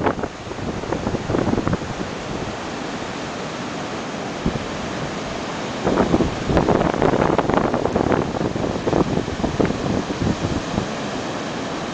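Ocean surf breaking in a steady rushing wash, with wind buffeting the microphone in irregular gusts that come on harder about halfway through.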